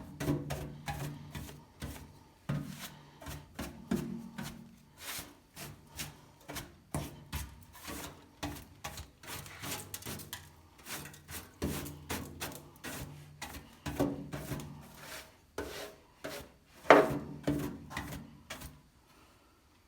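Hand rubbing and scraping strokes on a steel seat pan, irregular, about two a second, with a sharper knock about 17 seconds in.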